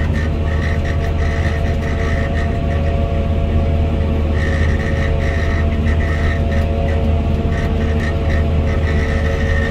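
CLAAS self-propelled forage harvester running under load as it cuts and chops standing maize, heard from inside its cab: a steady, loud low engine-and-machinery drone with a constant mid-pitched whine and a higher tone that comes and goes.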